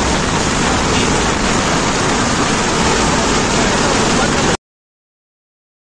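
Steady, loud rushing noise of a tractor driving on a road, its engine running under wind on the microphone. It cuts off suddenly into silence about four and a half seconds in.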